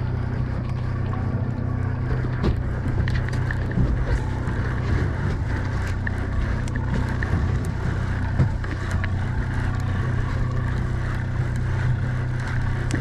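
Boat engine running steadily with a low hum, and scattered light clicks and knocks.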